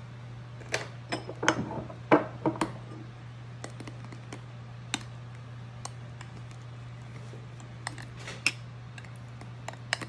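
A thin metal utensil clicking and tapping against a small ceramic dish while food colouring is stirred into meringue frosting, the taps bunched about one to three seconds in and scattered after. A steady low hum runs underneath.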